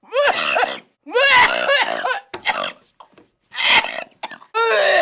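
A woman making a string of short, burp-like throaty vocal noises: about five separate bursts with brief silent gaps between them.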